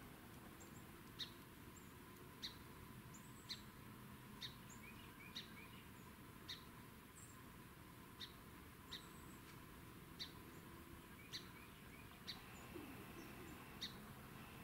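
A small bird chipping, faint short high chips repeated about once a second, over quiet background hiss.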